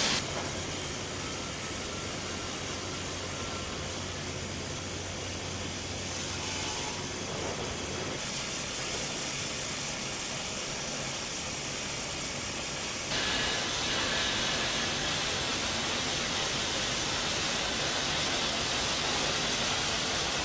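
Steady hiss of robotic arc welding, with a low electrical hum under it for the first several seconds. About two-thirds of the way in, the hiss steps up louder and brighter.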